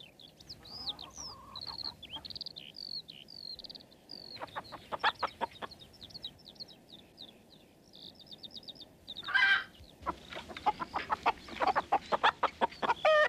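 Small birds chirp in quick little glides throughout, with a hen clucking. About nine seconds in the hen gives a loud squawk, then breaks into fast, loud clucking.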